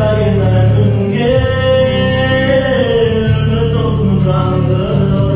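A man singing long, held notes that glide slowly in pitch, over a steady low accompaniment.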